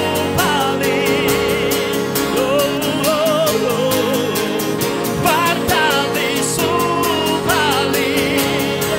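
Live worship song: a man sings the melody with vibrato into a microphone, backed by acoustic guitar and keyboard with a steady rhythm.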